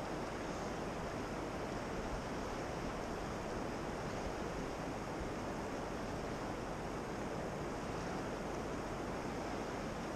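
Steady rush of the fast-flowing Yellowstone River, an even, unbroken noise.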